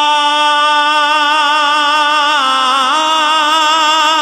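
A man singing devotional Punjabi verse solo into a microphone, holding one long vowel note with a slight waver, then turning down and back up in pitch about two and a half seconds in.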